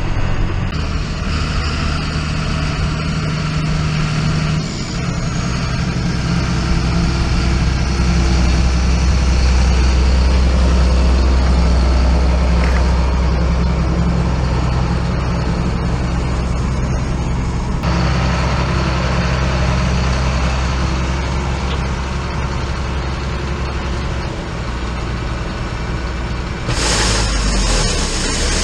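Diesel engine of a John Deere tractor running steadily under load, towing a loaded grain cart down a hill, heard from the cab. A sudden loud hiss joins near the end.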